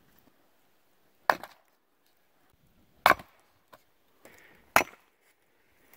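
Hatchet chopping firewood on a chopping block: three sharp chops, evenly spaced about a second and three quarters apart, splitting the wood into kindling.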